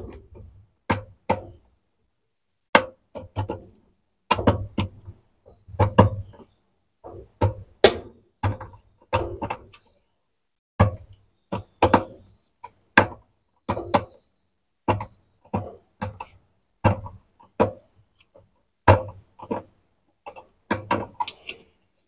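Irregular sharp clicks and knocks, about one to three a second, from a short 8 mm wrench being worked in short strokes on the bolt that holds a washing machine's agitator, loosening it.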